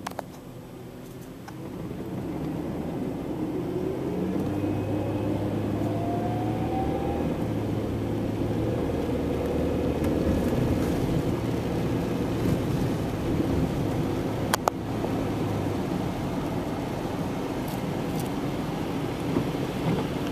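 Car heard from inside the cabin as it pulls away from a stop, the engine note rising, then driving along a wet road with steady engine and road noise. A single sharp click about fourteen and a half seconds in.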